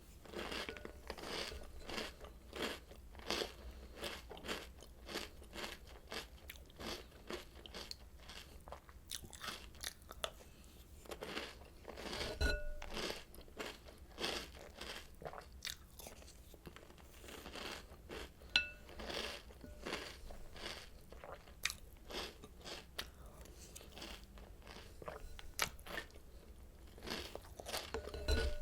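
Crunching and chewing of Oreo O's cereal: a steady run of crisp crunches, one close after another. A short ringing clink comes about twelve seconds in, again about eighteen seconds in, and near the end.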